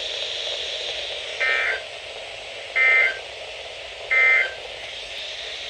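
Emergency Alert System end-of-message code: three short buzzy data bursts about 1.4 seconds apart over steady radio hiss, signalling the end of the alert.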